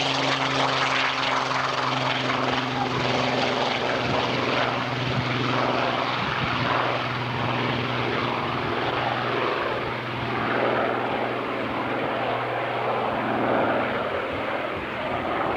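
Propeller aircraft engine running with a steady drone, over a wide rushing noise.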